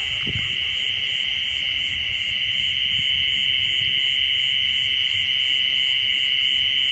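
A chorus of night insects, crickets among them, trilling steadily and without a break, with a fainter, evenly pulsing trill higher up.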